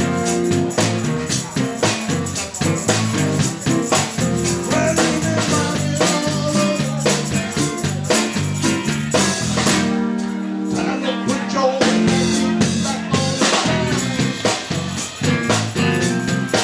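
Live rhythm-and-blues band playing with drum kit, bass and guitar, a man singing over it. About ten seconds in the drums drop out for a couple of seconds under held chords, then the beat comes back in.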